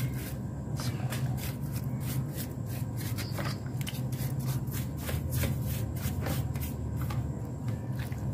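A brush scrubbing the oil-caked casing of a Suzuki RC100 motorcycle engine with a detergent-and-petrol wash, in quick, irregular scratchy strokes over a steady low hum.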